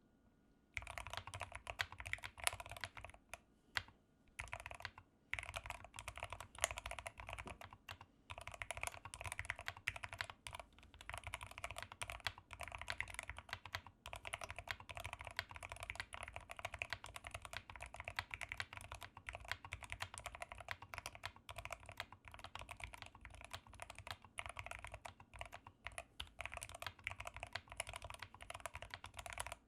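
Steady typing on a Rama M60 mechanical keyboard with 67 g Zealios V2 tactile switches and PBT keycaps: a dense, quick run of keystroke clacks that starts about a second in and pauses briefly twice early on.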